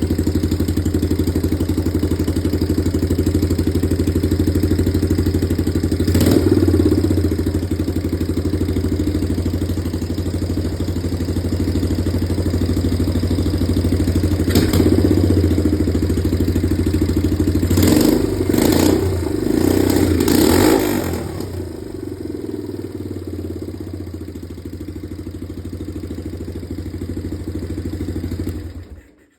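1980 Yamaha XT250's single-cylinder four-stroke engine idling through a straight pipe with no muffler, given a handful of quick throttle blips in the middle. The engine stops abruptly near the end.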